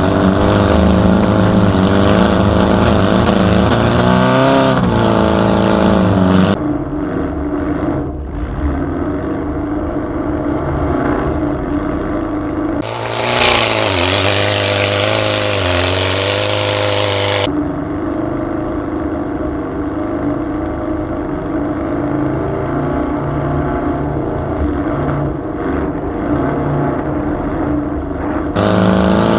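Air-cooled Volkswagen flat-four engine revving and running under load, its pitch rising and falling with the throttle, in several clips cut together. A loud rushing noise rides over the engine for a few seconds in the middle.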